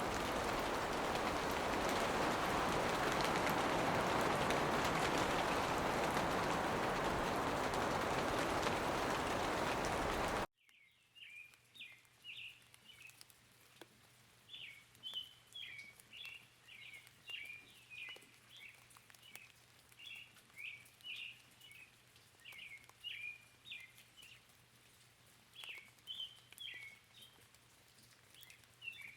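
Heavy rain shower, a steady hiss, cutting off suddenly about ten seconds in. After it a small bird sings short chirping phrases over and over.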